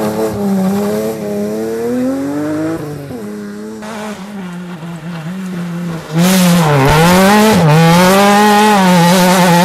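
Rally car engines at full throttle. The first car accelerates away uphill, its engine note climbing and then dropping back and fading. About six seconds in, a second rally car arrives much louder through the hairpin: its revs dip twice, then it holds high revs as it pulls away.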